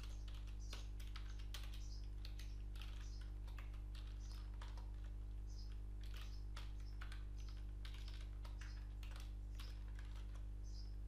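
Typing on a computer keyboard: irregular keystrokes, a few a second, over a steady low electrical hum.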